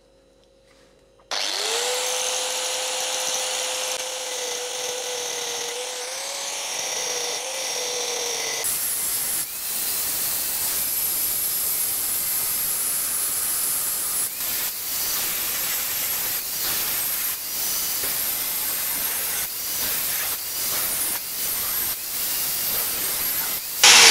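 Angle grinder with a cutting disc starting up and spinning free with a steady whine for several seconds. About nine seconds in it bites into the thick steel shell of a refrigerator compressor and cuts along the seam, a harsh, uneven grinding of disc on metal.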